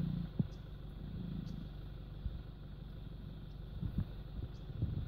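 Low, steady hum of an idling vehicle engine, with a few faint clicks. A lion's low growl fades out at the very start.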